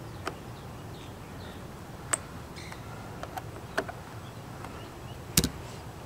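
Hand screwdriver clicking against screws and the RV's metal side panel while mounting a solar security light: a handful of sharp separate clicks a second or so apart, the loudest a quick double click near the end.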